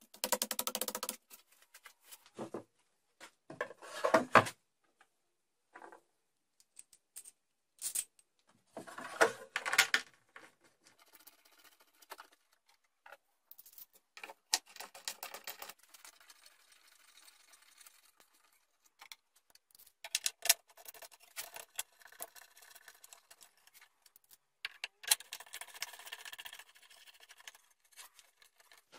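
Handling noises on a homemade wooden disc sander: hands rub and press a hook-and-loop sanding disc onto the plate, then turn and tighten the tilting table's locking knobs. These come as irregular rubs, taps and clicks in separate bursts with short quiet gaps.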